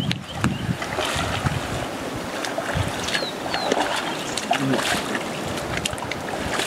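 Wind on the microphone over outdoor ambience, with a few short, high bird chirps about three seconds in.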